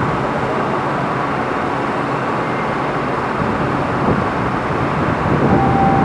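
Osaka subway train standing at the platform: a steady hum and hiss of the train and station, with the train's doors sliding shut about four to five seconds in. A steady tone starts shortly before the end.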